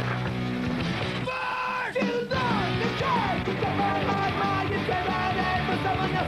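Fast rock music, punk in style, with a held chord at first and then shouted vocals coming in about a second in.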